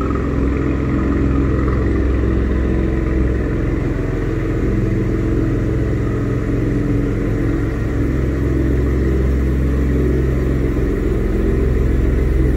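Ford F-150 pickup's engine idling steadily, a low, even exhaust note.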